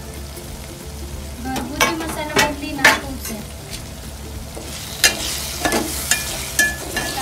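A spoon stirring and scraping prawns, onions and spices in a hot metal pot, with a run of sharp clinks and knocks against the pot from about a second and a half in. The oil sizzles as the masala is turned, the hiss growing stronger in the second half.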